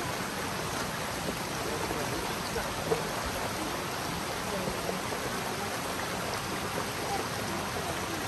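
A river flowing steadily, with one brief click about three seconds in.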